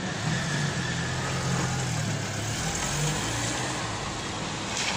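Car engines running as road traffic moves off across the railroad crossing, with a car driving past close by near the end.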